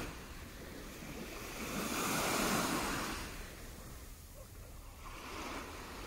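Small waves of the calm Baltic Sea lapping and washing onto a pebbly shore. One wash swells about two seconds in and fades, and a softer one comes near the end, over a low steady rumble of wind on the microphone.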